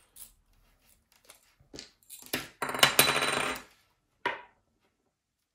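Small hard objects clinking and rattling as they are handled on a tabletop. A few light clicks come first, then a louder rattling clatter of about a second and a half starting some two seconds in, and one last click.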